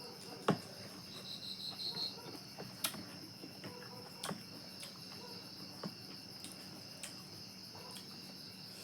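Crickets chirring steadily, with a brief run of quick high chirps about a second in and scattered small clicks and taps.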